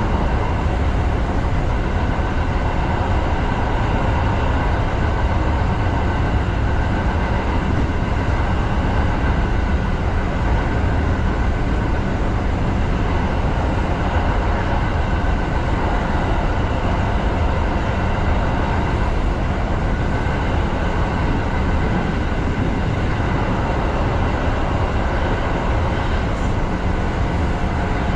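Electric commuter train running steadily through a tunnel: an even rumble of wheels on rail with motor hum under it.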